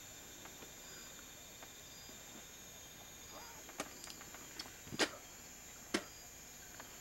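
Night insects chirping steadily in short repeated pulses, with a handful of sharp clicks and knocks about four to six seconds in, the loudest near the five-second mark.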